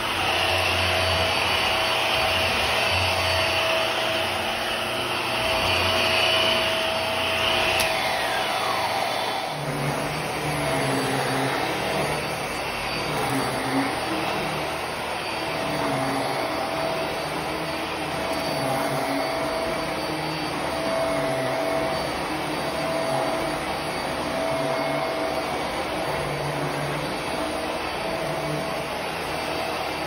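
Hart Pet Grade upright vacuum running steadily while it is pushed over a hard floor and then back and forth across an area rug; about eight seconds in its high whine drops in pitch, and after that a lower, uneven rumble rises and falls with the strokes.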